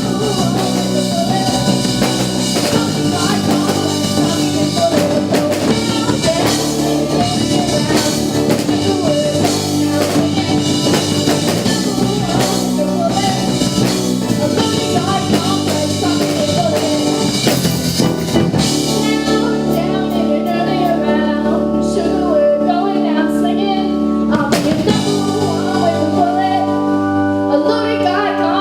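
Live rock band playing with drum kit, guitar and singing. About two-thirds of the way through, the drums drop back, leaving sustained chords under a wavering melody line. The drum hits come back near the end.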